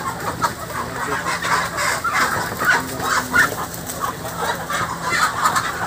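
A large flock of chickens clucking and squawking continuously, many calls overlapping, as the birds are caught and handled by hand.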